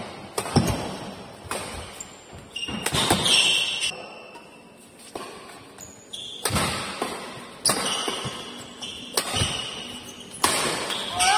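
Badminton rally in an echoing hall: sharp racket hits on the shuttlecock, about one every second or so, mixed with short high squeaks of shoes on the court.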